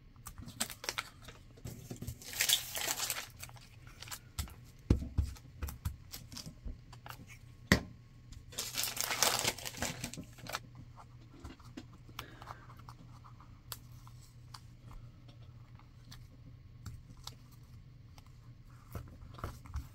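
Paper handled in a gluebooking session: two longer rasping sounds of paper being pulled, about two seconds in and again around nine seconds, with light taps and rustles of paper cutouts being pressed onto a page between them.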